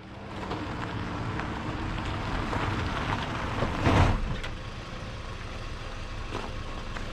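Pontiac Vibe hatchback driving up a gravel driveway and pulling to a stop, its engine running and tyres crunching on the gravel, loudest as it stops about four seconds in. The engine then keeps idling, with a couple of sharp clicks as the driver's door opens.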